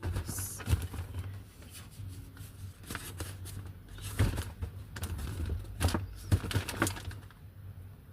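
Packaging being handled: irregular knocks, clicks and rustling, with sharper knocks about a second in and several more in the second half.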